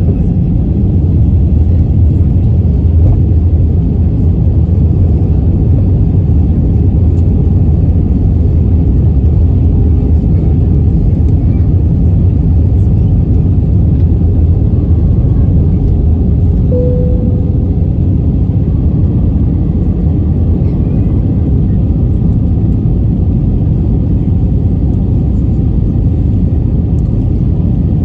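Steady low rumble of airflow and jet engines heard inside the cabin of an easyJet Airbus airliner descending on approach to land.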